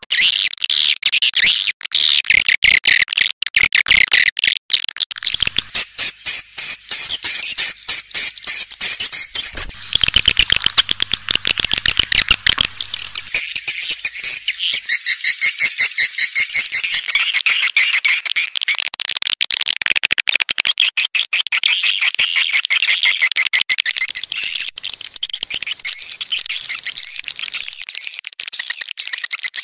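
Swiftlet lure-call recording: dense, rapid, high-pitched twittering and chirping of swiftlets, played without pause as a call sound for drawing swiftlets into a nesting house.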